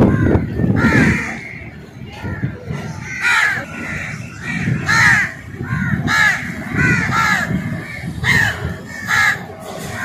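Crows cawing over and over, several birds calling in quick succession, about one to two calls a second, over a low uneven rumble of background noise.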